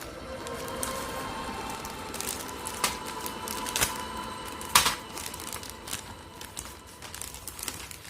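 Plastic packaging of a toy spring airsoft gun crinkling as it is handled, with a few sharp clicks, the loudest about five seconds in.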